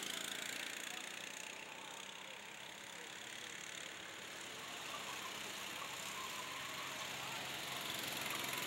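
Go-kart engines running on the circuit, a steady engine drone that swells gently toward the end.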